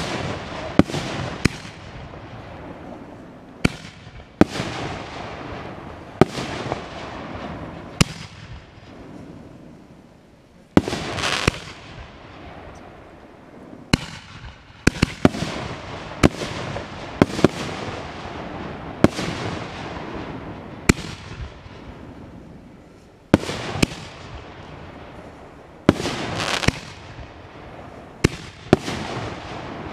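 Aerial firework shells bursting one after another: sharp bangs at uneven intervals, about twenty in all, each trailing off in a fading echo.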